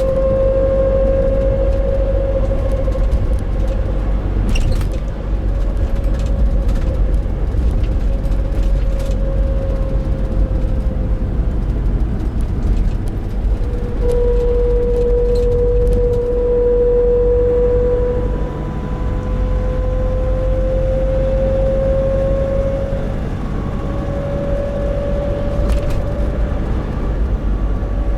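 Nissan NV350 Caravan cruising under steady throttle, a clear humming drone (the 'kōn' noise) running over the low rumble of the diesel and road, its pitch sagging a little midway and then slowly climbing. The owner suspects the differential, with the transmission or propeller shaft also in question.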